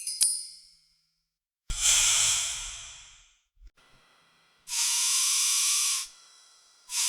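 Pressure washer spraying in bursts: two sharp clicks at the start, a sudden spray with a low thump about two seconds in that fades away, then two steady high-pitched hissing jets of about a second and a half each, the second starting near the end.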